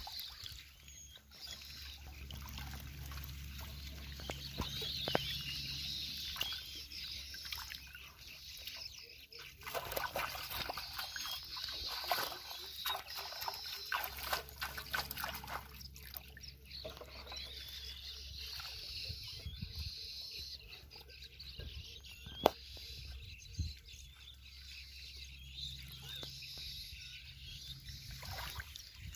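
Shallow pond water sloshing and splashing as a person wades through it and scoops and throws water by hand, busiest through the middle stretch. One sharp knock about three quarters of the way through.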